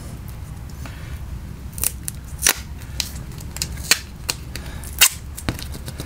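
Irregular sharp clicks and clacks, about a dozen, of plastic and metal parts being handled as the wiring clips are worked off a washing machine's drive motor, over a steady low hum.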